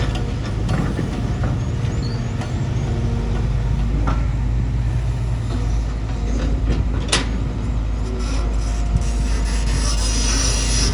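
Bulldozer's diesel engine running steadily under load, with a deep low rumble and a busy mechanical clatter over it. A single short, sharp crack stands out about seven seconds in.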